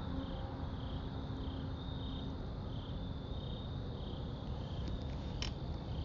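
Crickets chirping in a steady pulsing rhythm, about two pulses a second, over faint outdoor noise. The last note of the air horns trails off right at the start.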